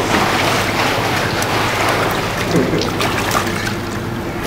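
Pool water splashing and sloshing as a child swims across an indoor pool, ringing in the tiled hall, over a steady low hum.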